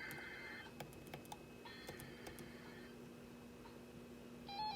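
Faint scattered clicks and taps, like keys on a computer keyboard, over a low steady hum and a few brief high electronic tones. Near the end a louder electronic tone starts, stepping up and down in pitch.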